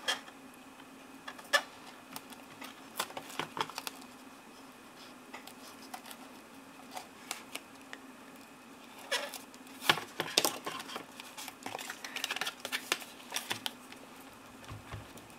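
Paper, ribbon and adhesive tape being handled on a cutting mat: scattered light rustles, crinkles and small taps, busiest past the middle, over a faint steady hum.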